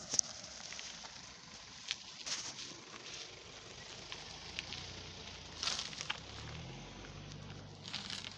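Road-works sounds: scattered crunches and clicks, a louder crunching burst about two seconds in, and a low engine hum that rises in pitch a little past the middle.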